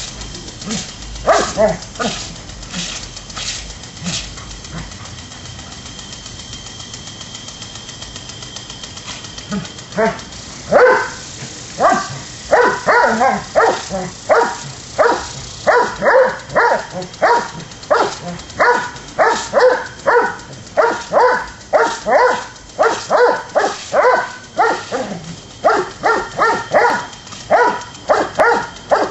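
Doberman barking at a spraying lawn sprinkler. There are a few barks at first, then a stretch of water spray hissing. From about ten seconds in comes a fast, steady run of barks, about two a second.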